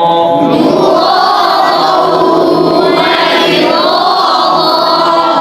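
A class of students chanting an Arabic phrase back in unison as a Quran-recitation pronunciation drill, many voices blended together in one continuous drawn-out chant.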